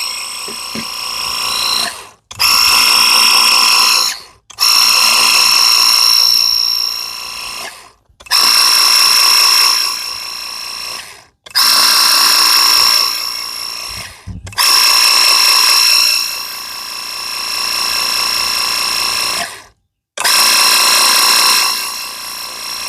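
Harbor Freight battery-powered pressure washer's pump whining, with its 0-degree water jet hissing on concrete. The trigger is squeezed and let go in about seven runs of a few seconds each, each stopping suddenly.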